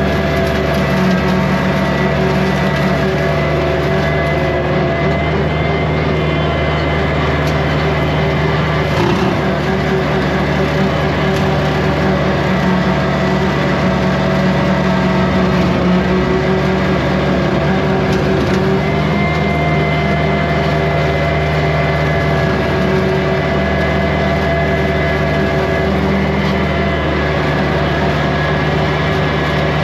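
Kubota 2150 compact tractor's diesel engine running at a steady speed.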